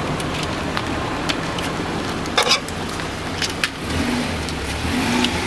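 A car engine idling steadily close by. Scattered light clicks and scrapes come from a metal scoop working in a metal tub.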